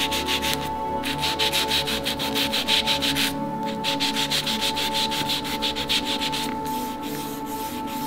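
Quick back-and-forth scrubbing of a black pad along thin wooden sticks, giving a rapid dry rasping that pauses twice briefly and grows softer near the end. Soft background music with a steady high tone plays underneath.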